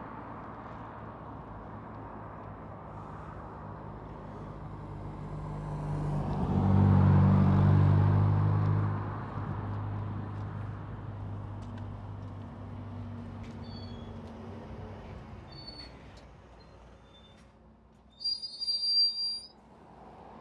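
Road traffic with a steady engine hum. A vehicle passes close with a low engine drone about six to nine seconds in. Near the end a city bus pulls up with a brief high brake squeal and hiss.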